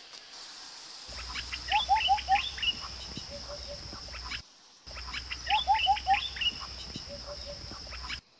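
Recorded birdsong ambience of several birds chirping, including a run of four quick falling notes, over a steady high hiss. The same few-second stretch plays twice, with a short break between.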